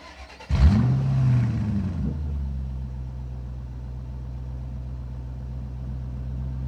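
Car engine starting about half a second in, revving briefly, then settling into a steady low idle.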